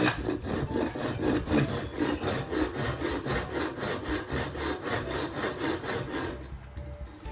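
Hand saw cutting through wood in steady back-and-forth strokes, about four a second, slowing and fading away near the end.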